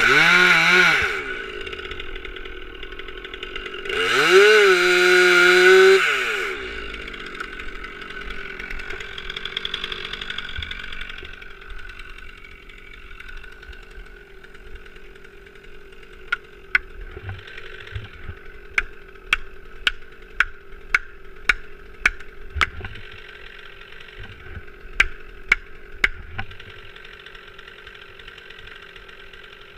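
Stihl MS 362 C-M two-stroke chainsaw revved briefly at the start and again about four seconds in, then left idling. From about sixteen seconds in, a dozen or so sharp knocks about half a second apart sound over the idle.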